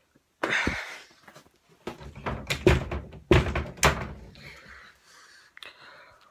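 A series of hard thumps and knocks, one near the start and several more in quick succession between about two and four seconds in.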